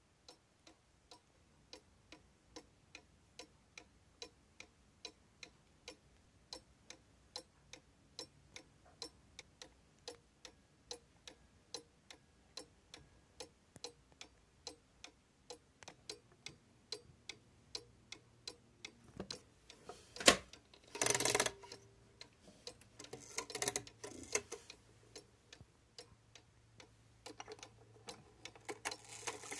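Mechanical pendulum movement of a 1970s Majak cuckoo clock ticking steadily and evenly, a little over two ticks a second. About twenty seconds in there is a loud sharp click followed by short bursts of rustling noise over the ticking.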